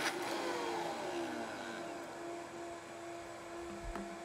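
Vitamix Turbo Blend two-speed blender pulsed on and off to grind chunks of steak and cheese into ground meat, its motor falling in pitch as it coasts down after a pulse. A low thump sounds near the end.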